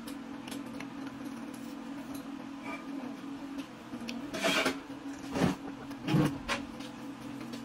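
A person biting and chewing a crisp fruit close to the microphone: three short, loud crunching bites about four and a half, five and a half and six seconds in, over a steady low machine hum.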